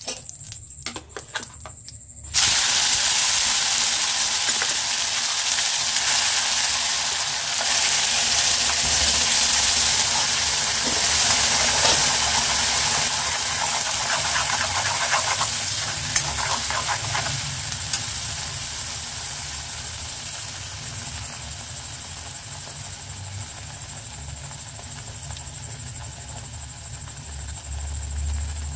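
Wet ground chilli-onion paste dropped into hot oil in a pan: a loud sizzle starts suddenly about two seconds in and slowly dies down as the paste is stirred with a metal spatula. Before it, a few crackles come from the mustard seeds and curry leaves frying in the oil.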